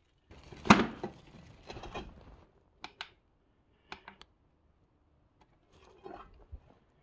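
Handling of a heavy extension cable and plug-in power meter: a loud knock under a second in, a couple of seconds of rustling, then several sharp clicks.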